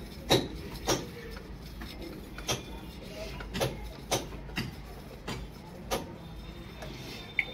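Repeated short knocks and splashes from a PVC borewell suction pipe with a foot valve at its bottom being jerked up and down by hand, about one stroke every half second to a second, working water up the pipe to test that the foot valve holds.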